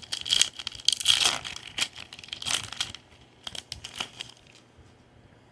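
Wrapper of a Topps Series 1 baseball card pack crinkling and tearing as it is opened, busiest for the first three seconds, then a few light rustles and clicks before it goes quiet.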